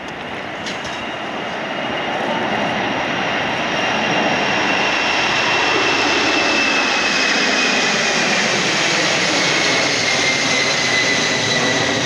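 Boeing 747's four jet engines at go-around thrust as the jumbo climbs away overhead: a loud roar that builds over the first few seconds, with a high whine that slowly falls in pitch as it passes.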